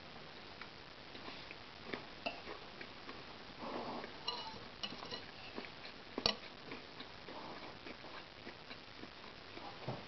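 Metal cutlery clinking and scraping against a ceramic bowl while eating, in irregular light taps, with one sharper click about six seconds in.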